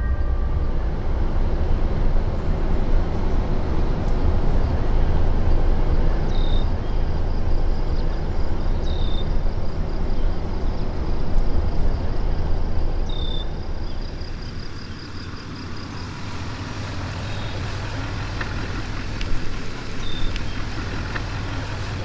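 Pickup truck driving on a gravel road: a steady low rumble of engine and tyres that eases off about two-thirds of the way through, with a few short high chirps over it.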